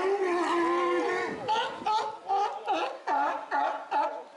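California sea lions barking: one long drawn-out call, then a quick run of short barks, about three a second. The uploader wonders whether they are quarrelling.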